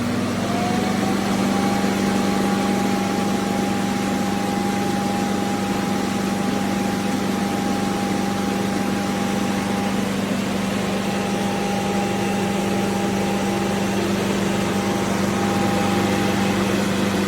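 Electric vacuum motor spinning up, its whine rising over about the first second and then holding steady above a steady hum and a rush of air. It runs on at a constant level.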